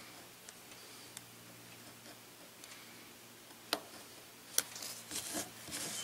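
A few faint ticks, then two sharp clicks about a second apart, followed by brief scratchy rubbing sounds near the end: small handling noises of hand work.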